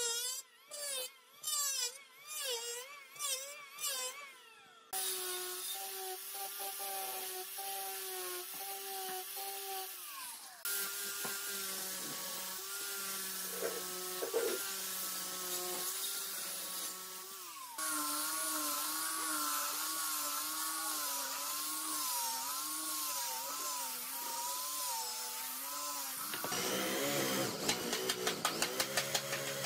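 Woodworking power tools in turn. First an electric hand planer cuts in short passes, about one a second. Then comes a long steady motor whine that wavers in pitch as an angle grinder sands the wood. Near the end an electric drill bores a hole, with rapid ticking.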